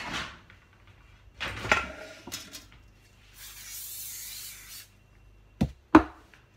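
Aerosol spray hissing for about a second and a half, greasing a perforated metal pizza tray, followed by two sharp knocks on the bench about a second later.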